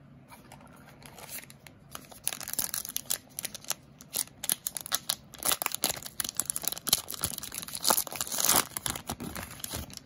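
A trading card pack wrapper being torn open and crinkled by hand. It makes a dense crackling rustle that starts faintly, grows busy about two seconds in and is loudest near the end.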